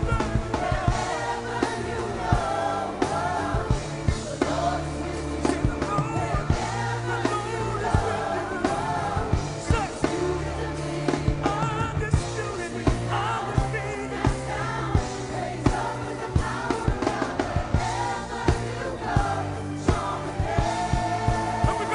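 Gospel band music with group singing, a steady bass line and regular drum beats.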